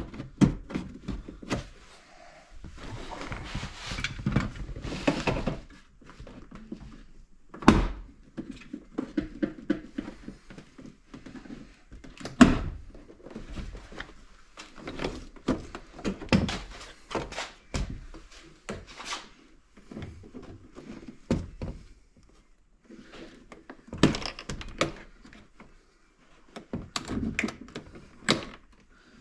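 Car door trim being worked on by hand: a string of clicks, knocks and thunks of plastic panel, clips and tools. A longer rubbing, scraping noise comes a few seconds in.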